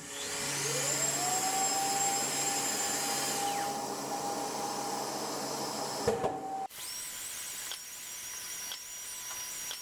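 Festool long-reach 'giraffe' sander running with its Festool dust extractor: a motor whine rises as it spins up, then holds steady. About six and a half seconds in the sound drops abruptly to a quieter, steady high whine.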